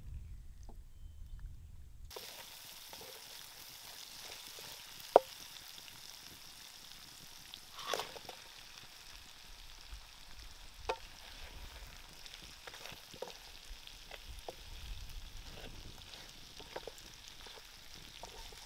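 Pieces of mackerel tuna in a spicy sauce sizzling in a frying pan over a campfire, with a spatula stirring and knocking against the pan in scattered sharp clicks; the loudest knock comes about five seconds in. The sizzling starts about two seconds in, after a low rumble.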